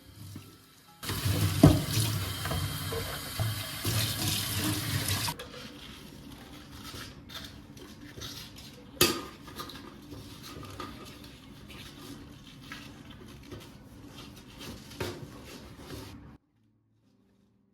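Kitchen tap running into a sink for about four seconds, then shut off, followed by quieter scattered clinks and knocks of things being handled at the sink, with one sharp knock about nine seconds in.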